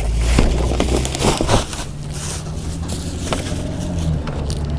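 Plastic wrapping crinkling and rustling as a plastic-wrapped storage container is pulled out of a cardboard box, loudest in the first couple of seconds. A steady low engine rumble runs underneath.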